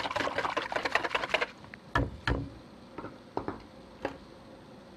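Egg-and-milk marinade being beaten in a bowl: a rapid run of clattering strokes that stops about a second and a half in, followed by a few separate knocks.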